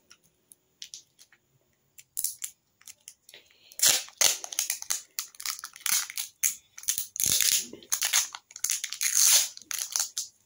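Clear packing tape handled with a few small clicks, then from about four seconds in pulled off the roll in a series of crackling rips, with the tape bitten and torn.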